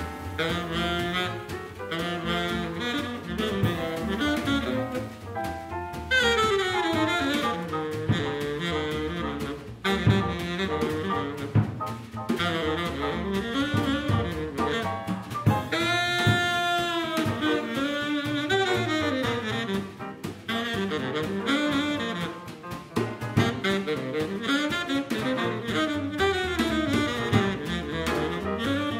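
Small swing jazz band playing live: saxophone leading over piano, upright double bass and drum kit. The saxophone plays a fast falling run about six seconds in and holds one long note around sixteen seconds.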